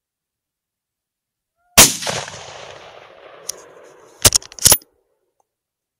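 A single rifle shot about two seconds in, its report fading away over a couple of seconds as it echoes. About two and a half seconds later come two sharp clacks half a second apart, the bolt of the bolt-action rifle being worked for a follow-up shot.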